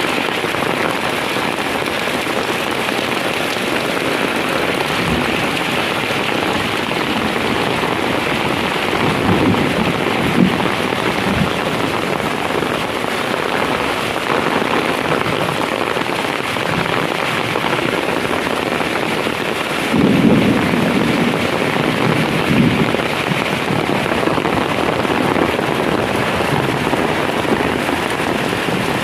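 Heavy rain falling steadily, a dense even hiss, with two deeper, louder swells partway through.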